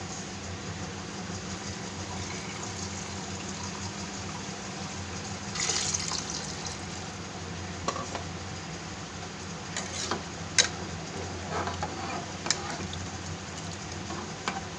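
Water being poured into an aluminium pressure cooker of spiced sprouts, then a steel ladle stirring the liquid. The ladle clicks sharply against the pot a few times in the second half, over a steady low hum.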